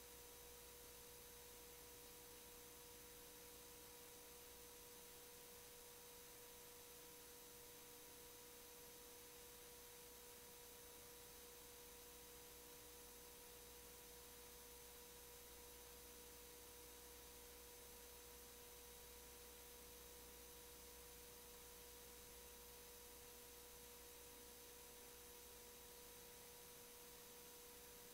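Near silence: a faint steady electronic tone over low hiss, the idle noise of the stream's audio feed while the meeting sound is off.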